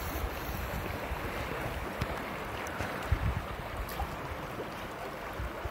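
Wind rumbling on the microphone in irregular gusts over a steady wash of moving water.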